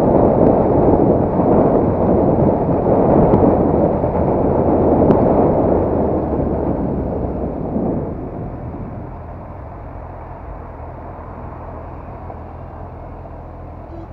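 Wind rush and motorcycle engine noise while riding. About eight seconds in the rush dies away as the bike slows, leaving the engine running quietly with a steady low hum.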